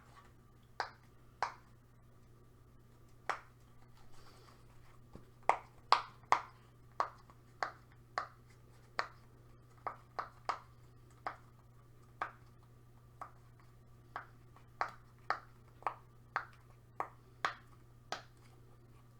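Silicone pop-it fidget toy being pressed bubble by bubble: a long run of short, sharp pops at an uneven pace, about one to two a second, with a few quick ones close together.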